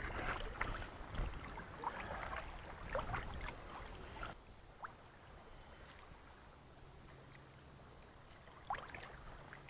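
Shallow lake water splashing and sloshing around hands and a trout being released. The splashing fades out about four seconds in, leaving only faint lapping, with one last small splash near the end.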